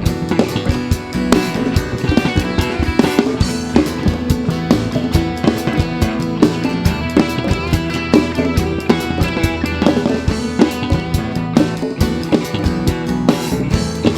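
Band playing an instrumental passage: a drum kit keeps a steady beat of kick, snare and rimshots under bass and guitars.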